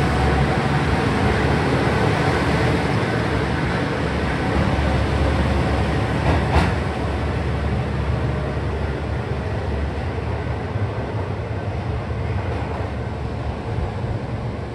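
KiHa 125 diesel railcar engine and wheels running as the two-car train pulls out of the station and moves away, the low engine hum and rolling noise slowly fading. A single sharp click about six and a half seconds in.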